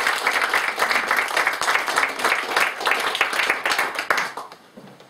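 Applause from a small audience: many people clapping, which dies away about four seconds in.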